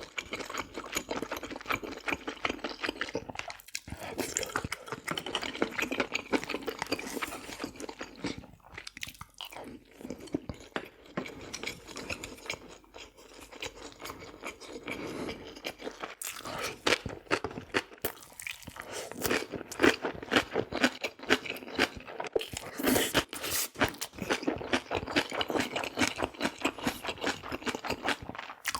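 Close-miked chewing and crunching of food: a dense, irregular run of crackly bites and mouth sounds, with short pauses between mouthfuls.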